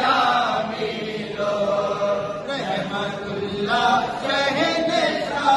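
Men's voices chanting a devotional salaam in Urdu in phrases of long held notes.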